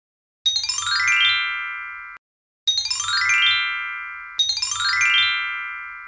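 A bright chiming glissando sound effect, three times: each a quick run of bell-like notes falling in pitch, left to ring and fade, the second and third close together.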